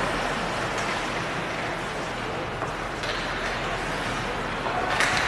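Ice hockey game heard from the stands: a steady noise of skates on the ice and the arena, with a few faint clicks of sticks and puck and a sharper knock near the end.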